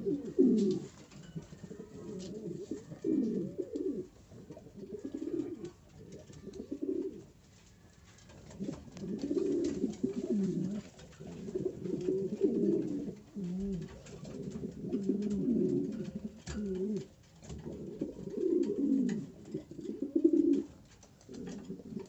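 Domestic pigeon cooing over and over, in low rolling coos about one to two seconds long with short breaks between them. It is the display coo of a puffed-up male.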